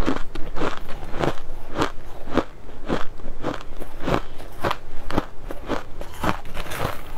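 Crushed ice being chewed and crunched in the mouth, in a steady rhythm of sharp crunches a little under two a second.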